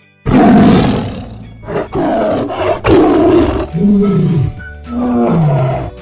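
Tiger roaring, about five loud, rough calls in a row, the last two rising and then falling in pitch, over soft background music.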